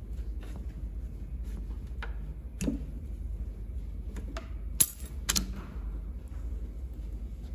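Tools and metal engine parts being handled during a diesel engine teardown: scattered light clicks and clinks, a dull knock, and two loud sharp clacks about half a second apart near the middle.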